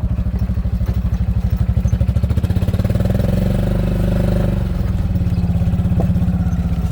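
A vehicle engine running close by with a fast, even pulse. Its revs rise about two and a half seconds in, hold, then drop back to a steady run.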